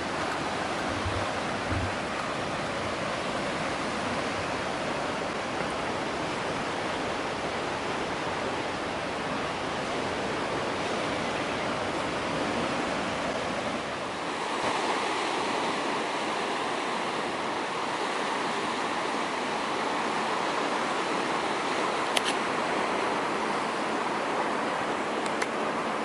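Steady rushing outdoor ambience of sea surf on the rocks below and wind, changing in tone about halfway through, with a few faint clicks near the end.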